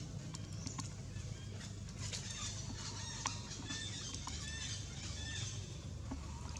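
A run of short, high-pitched chirping animal calls in quick succession, from about two seconds in to past five seconds, over a steady low rumble with a few sharp clicks.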